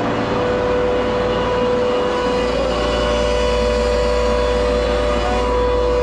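Temporary portable air-cooled chiller running loudly and steadily: a constant whine over a low rumble, which by its sound the owner takes for screw compressors.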